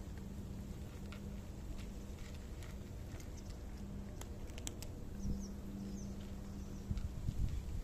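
Cats crunching dry kibble, a scatter of small crisp clicks at an uneven pace as they chew.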